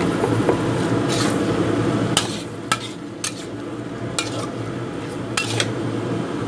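Metal spatula stirring boiled chicken pieces through chilli spice paste in a frying pan, with a light sizzle. About two seconds in come half a dozen sharp scrapes and clinks of the spatula against the pan, over a steady low hum.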